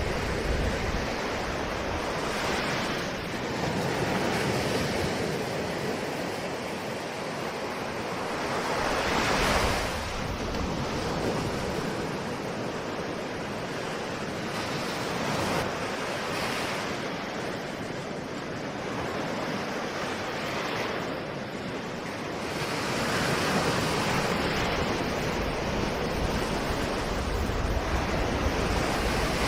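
Ocean waves breaking and washing on a shore, a continuous surf hiss that swells every few seconds as each wave comes in, with some wind.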